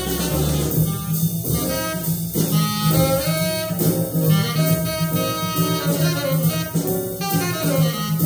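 Jazz recording: a tenor saxophone playing a fast-moving solo line over a double bass and the band's accompaniment.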